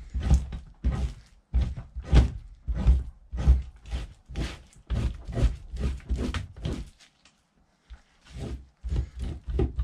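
Repeated short strokes of a knife fleshing a raccoon hide, about two scraping pushes a second. They stop briefly about seven seconds in, then a few more follow.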